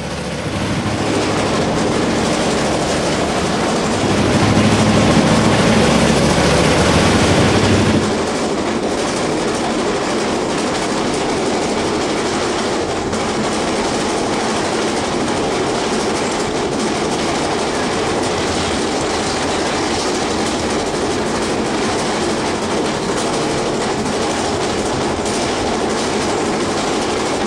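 Passenger train heard from aboard as it runs through a tunnel and out along a curve: a steady rumble and clatter of wheels on rail. It is louder and heavier for a few seconds, then drops suddenly about eight seconds in and goes on evenly.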